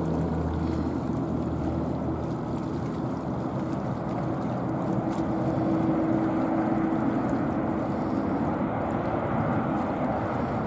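Jet airliner engines running: a steady rumble with a held hum, and a deeper hum underneath that stops about two seconds in.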